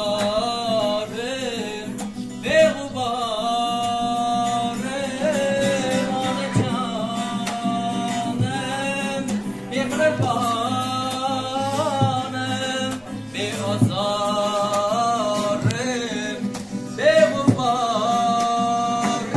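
A man singing a slow Uzbek song live in long, held, wavering notes, accompanied by a strummed acoustic guitar.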